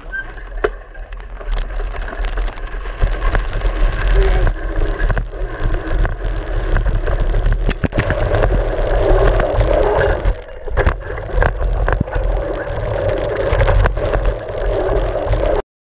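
Mountain bike ridden over a dirt trail, heard from a camera clamped to the front fork: a steady low rumble of the tyres and the ride, with frequent knocks and rattles as the bike goes over bumps. The sound cuts off suddenly near the end.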